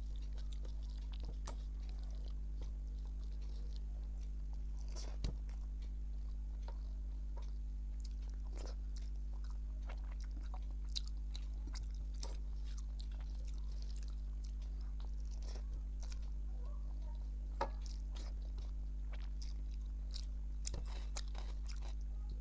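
Close-up mouth sounds of someone eating rice and dal: scattered wet chewing clicks and smacks, with an occasional louder knock. A steady low electrical hum runs underneath.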